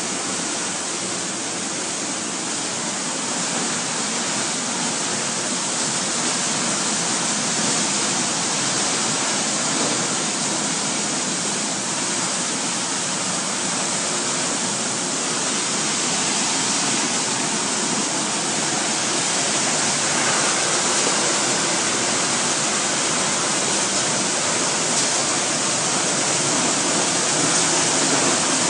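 Plastic-flake color sorting machine running: a steady, even hiss, strongest in the highs, growing slightly louder over the stretch.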